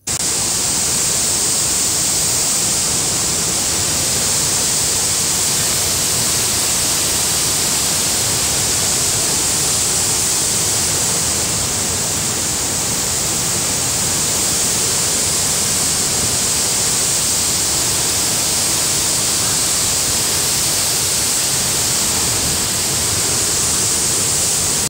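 Waterfall and floodwater swollen by heavy rain, rushing in a steady, loud torrent.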